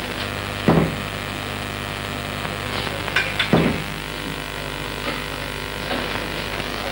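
A judge's gavel struck on the bench twice, about three seconds apart, each a sharp knock with a short ring, over a steady hum and hiss.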